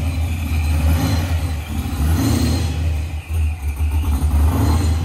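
A Fox-body Mustang's 5.0 V8 running at a low, uneven idle while the car rolls slowly, with a brief dip in level about three seconds in.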